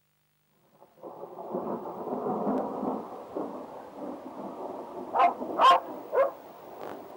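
Thunder rumbles, starting suddenly about a second in after silence. About five seconds in, a dog barks three times in quick succession over it; the middle bark is the loudest.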